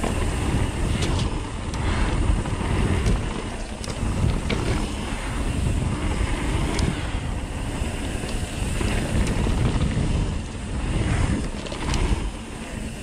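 Wind noise on the microphone of a mountain bike moving fast down a dirt trail, with tyre noise underneath and a few sharp clicks and rattles.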